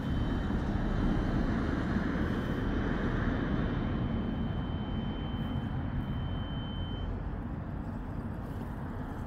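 Lorry towing a trailer driving past, its engine and tyre noise slowly fading as it moves away. A thin, steady high whine runs alongside and stops about seven seconds in.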